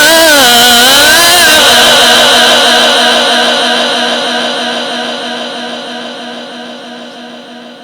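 A male Quran reciter's voice finishes a melismatic phrase in the melodic tajweed style about a second and a half in. The last note then hangs in a long echo from the sound system and fades away slowly.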